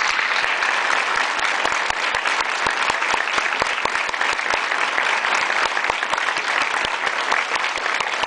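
Large audience applauding, with dense, steady clapping.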